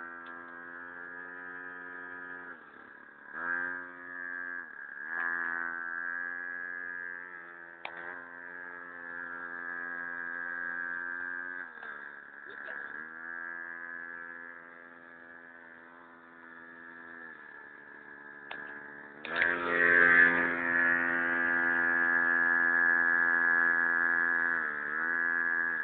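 Small engine of a mini ATV running with a steady buzzing hum, its pitch sagging and picking up again several times. About three-quarters of the way through it runs clearly louder.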